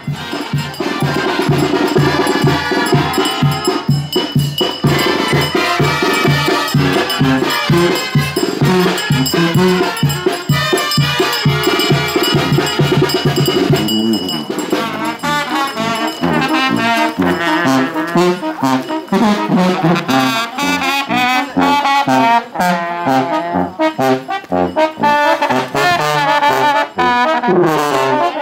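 Brass band music: trumpets and trombones over a steady pulsing bass, moving into a new, more flowing passage about halfway through.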